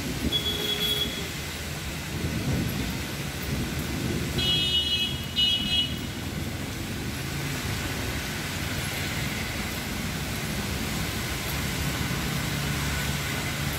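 Rain falling on a city street, a steady hiss over a low rumble, with brief high-pitched tones twice in the first half.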